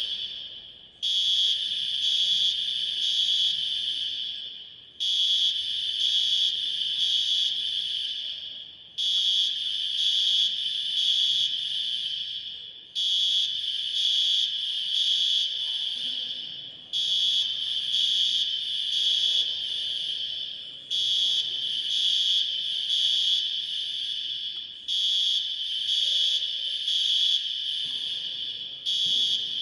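Smoke alarm sounding: a loud, shrill, high-pitched beeping in blocks of about three seconds, each followed by a brief gap and repeating every four seconds without stopping.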